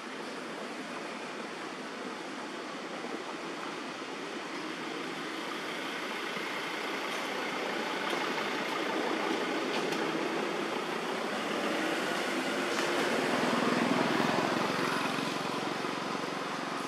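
Steady rushing noise of a vehicle going by, swelling to its loudest about three-quarters of the way through and then easing off.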